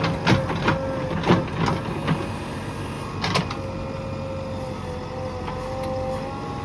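JCB 3DX backhoe loader's diesel engine running with a steady whine, and a handful of sharp metallic clanks during the first three and a half seconds.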